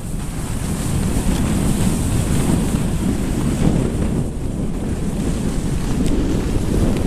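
Wind buffeting the microphone of a camera carried by a skier heading downhill: a loud, steady, low rumble.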